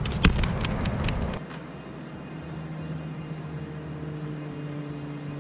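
An engine humming at a steady pitch. For the first second and a half it sits under a low rumble and a few clicks.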